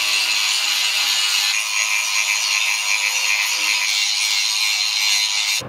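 Angle grinder grinding down a weld on steel square tubing: a steady, high-pitched grinding noise that cuts off suddenly near the end.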